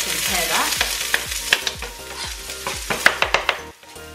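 Chopped onions frying in a hot pan, a steady sizzle with sharp clicks of a utensil against the pan as they are stirred. The sizzle and clicking drop away about three and a half seconds in.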